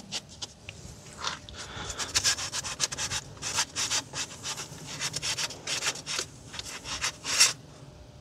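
Dropper seatpost, coated in assembly paste, rubbing and scraping inside the bike's seat tube as it is pushed down and worked into place: a run of short scraping strokes, the loudest near the end.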